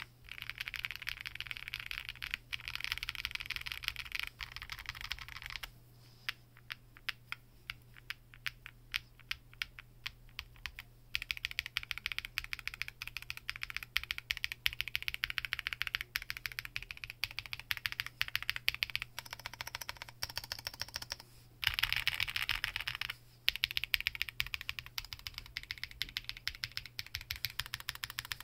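Typing on a Weikav Record Alice mechanical keyboard with stock Strawberry Cake linear switches, a POM plate and Armorsuit keycaps. Stretches of fast, dense keystrokes alternate with slower, separate key presses, as in the stretch about six to eleven seconds in.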